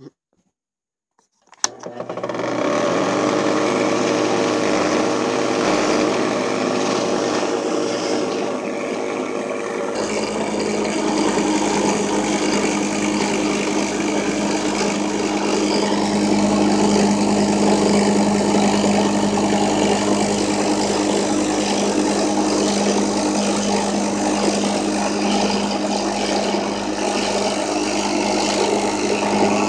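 Drill press running fast as a mill, its cutter machining plastic cutting-board material: a steady motor hum with cutting noise. It cuts in abruptly after a second and a half of silence and grows fuller and louder about ten seconds in.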